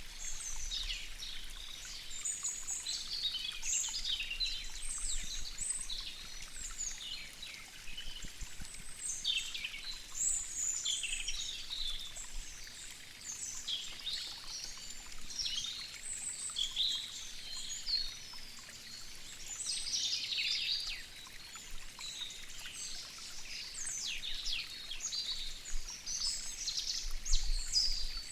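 Many small birds chirping and twittering without a break, over a faint background of running water from a waterfall.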